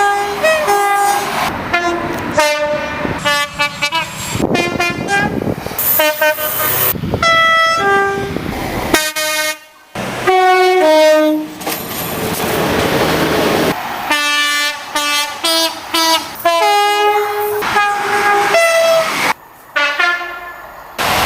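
British train two-tone horns, blast after blast from one train to the next, each a short high-low pair of notes. Stretches of a train's rushing running noise lie between some of the blasts.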